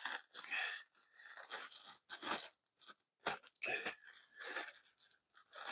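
Thin frosted plastic sleeve crinkling and rustling in irregular bursts as it is worked off a power bank by hand.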